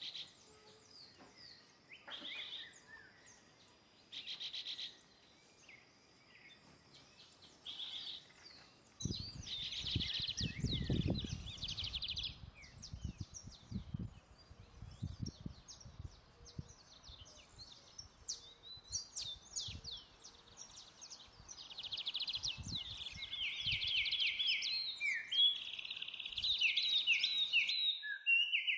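Several birds chirping and singing, short calls and quick rising and falling notes, growing busier and louder in the second half with fast repeated trills near the end. Soft low bumps and rumbles come and go through the middle.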